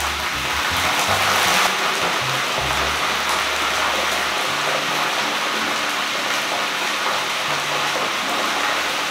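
Crab pieces deep-frying in hot oil in a wok: a steady, dense sizzle that swells briefly in the first two seconds.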